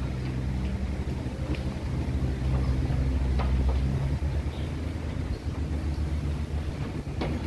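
Steady low mechanical rumble and hum, lighter after about four seconds, with a few faint clicks over it.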